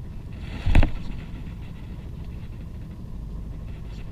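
A fishing rod being cast about a second in: one short, loud swish with a brief whirring tone, over a steady low rumble of wind and sea.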